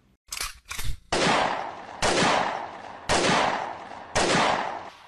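A few short crackles, then four loud, sharp bangs about a second apart, each dying away over most of a second.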